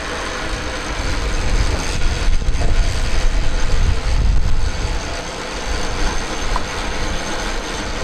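Steady low vehicle engine rumble, growing louder for a few seconds in the middle.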